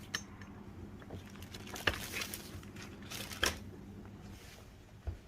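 A few sharp clicks and knocks from small parts of an Ampico player-piano stack being handled as old rubber tubing is worked off its nipples, three of them standing out, over a low steady hum.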